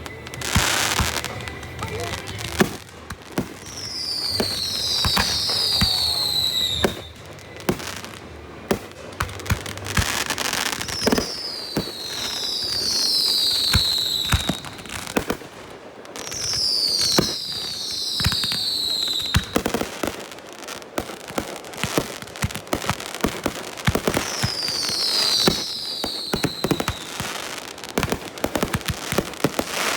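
Fireworks going off in quick succession: many sharp bangs and crackles, with clusters of several whistles falling in pitch every few seconds.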